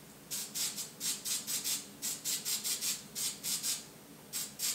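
Loose scenic foliage flakes shaken from a container over a small model tree: a quick dry rustle, about four or five shakes a second, with a short pause near the end before two more.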